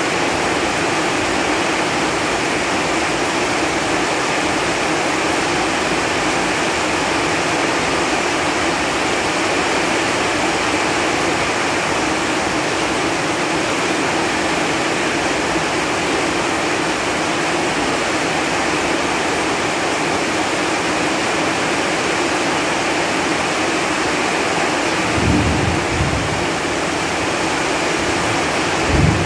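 Steady rain falling on leaves, an even hiss of many drops. Near the end come two brief low thumps.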